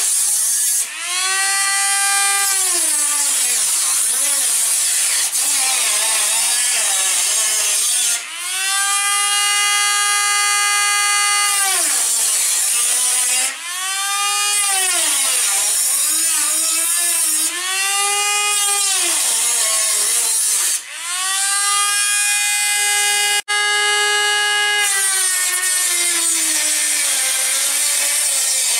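Handheld power tool cutting through the sheet-metal front fender of a Lexus GX 460: a high motor whine with a hissing cutting noise, its pitch sagging as the tool bites and rising again as it eases off. The tool stops briefly about five times and starts again.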